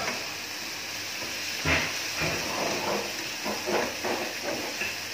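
Ampalaya and carrots sizzling in a frying pan, a steady hiss, with a knock of the cooking utensil against the pan about two seconds in and a few lighter scrapes of stirring later on.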